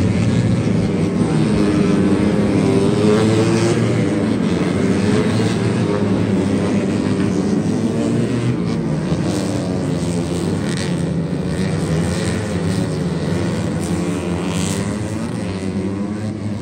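Several racing motorcycles at high revs on the circuit, their engines rising and falling in pitch as they accelerate, shift and pass by.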